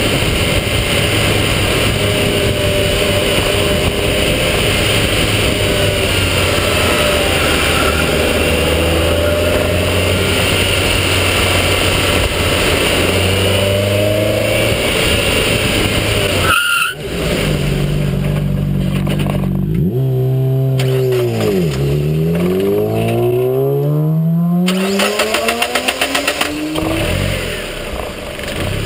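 Mazda Miata's four-cylinder engine pulling at a steady cruise, heavy with tyre and wind noise at a low bumper-mounted camera. After a cut about 17 seconds in, the engine note drops as the car slows, then climbs in steps as it accelerates through the gears.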